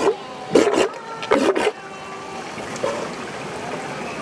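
Walrus vocalizing with three short, rough bursts in quick succession within the first two seconds, then quieter.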